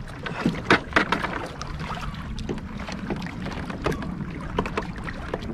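Scattered light clicks and knocks of hands working at a bait bucket and gear on a plastic fishing kayak, over a steady rush of wind and water.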